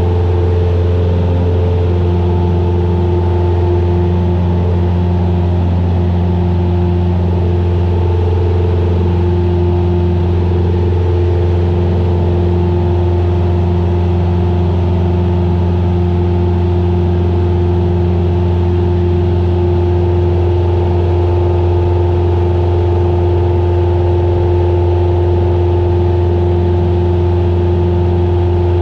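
Piston engine and propeller of a light single-engine plane droning steadily in flight, heard inside the cockpit: a strong low hum with steady tones above it.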